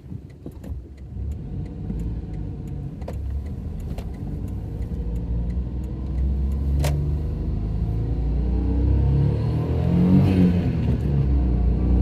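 Daihatsu Terios Kid's small three-cylinder engine pulling away and accelerating, its note rising and growing louder, with light ticks and one sharp click about seven seconds in.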